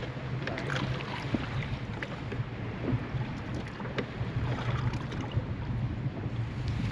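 Wind noise and water lapping around a fishing boat over a steady low hum, with scattered small knocks.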